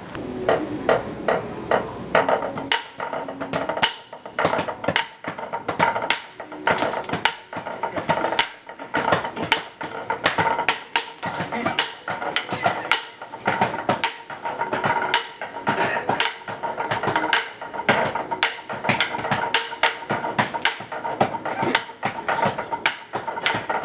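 Several drumsticks beating a fast, continuous rhythm of sharp stick clicks and taps on a drum practice pad and wooden furniture.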